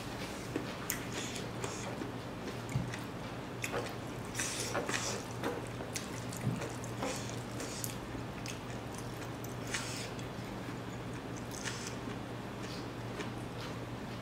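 A person eating rice by hand: chewing and lip-smacking, with fingers squishing the rice, heard as irregular short wet smacks and clicks over a steady low hum.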